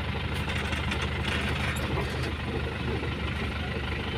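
Truck engine idling steadily, heard from inside the cab, with a brief hiss a little over a second in.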